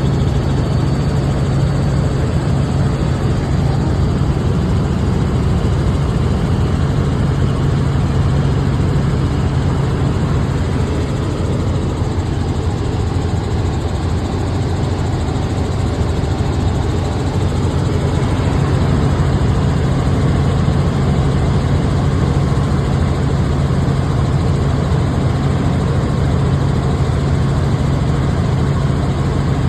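Helicopter heard from inside the cabin: a loud, steady drone of rotor and engine with a strong low hum.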